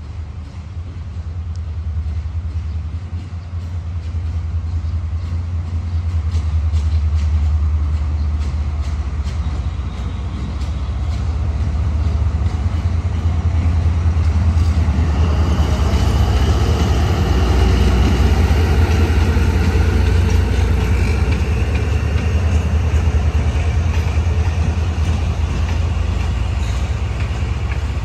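A D19E diesel-electric locomotive hauling a passenger train, with its engine giving a steady low drone that grows louder as it comes closer. From about halfway, a louder, brighter noise of wheels on the track joins in, with some high ringing tones.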